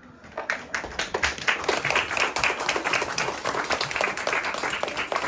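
A small audience of children and adults applauding, the clapping starting about half a second in and running on fast and uneven.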